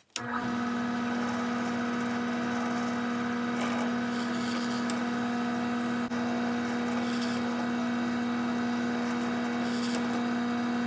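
Benchtop drill press switched on and running at a steady hum while drilling holes through a piece of thin leather. The motor starts abruptly just after the beginning.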